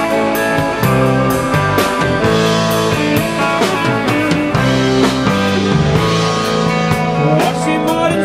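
Rock band playing an instrumental passage: electric guitar over a drum kit keeping a steady beat.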